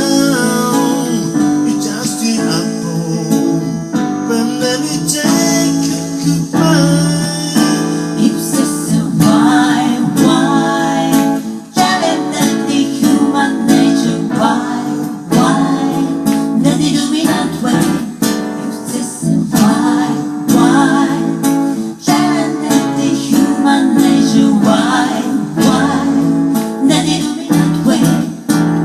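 Music: a strummed acoustic guitar with a singing voice.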